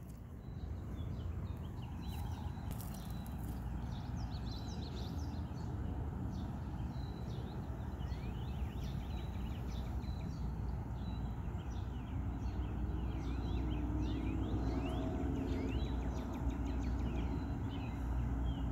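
Many short bird chirps and calls over a steady low rumble.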